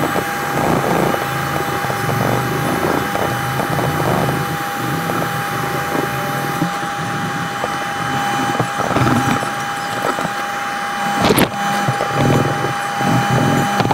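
Hand sanding a knife's wooden handle with a small strip of sandpaper: an uneven scratchy rubbing over a steady high hum, with one sharp click about eleven seconds in.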